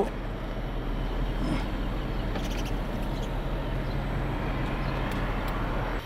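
A portable air conditioner's fan and compressor run steadily inside a closed car cabin, a constant hum and rush of air, with the car's engine idling underneath.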